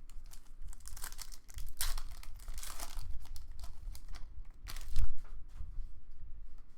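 Foil trading-card pack wrapper being torn open and crinkled by hand, an irregular run of crackles with one sharp, loud crackle about five seconds in.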